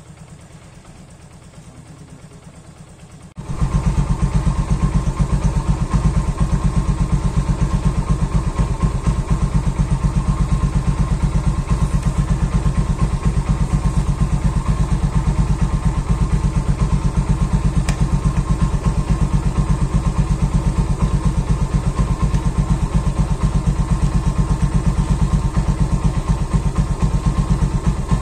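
Portable 12 V tyre-inflator compressor switched on about three and a half seconds in, then running loud and steady with a rapid chugging pulse as it pumps up a flat motorcycle tyre. Before it starts, a fainter steady engine idle is heard.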